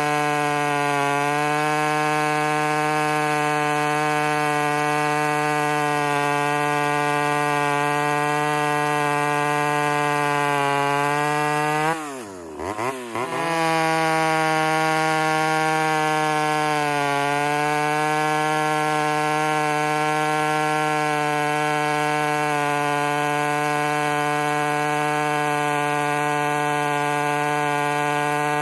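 Ported Homelite Super XL Auto two-stroke chainsaw running at a steady pitch. About twelve seconds in, the revs and volume drop sharply and then climb straight back, as when the throttle is let off and squeezed again.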